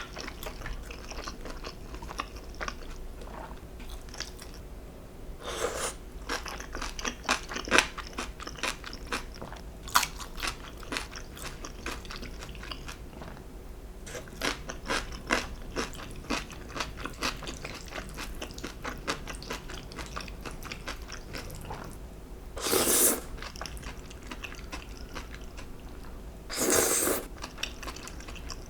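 Close-miked eating: crunchy biting and chewing of food, a dense run of crisp clicks, with three short louder noisy bursts, one early and two near the end.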